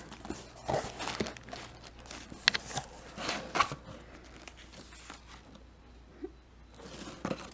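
Cardboard box flaps and paper inserts being handled as the box is opened: rustling with scattered crinkles and light taps, busiest in the first few seconds, then quieter.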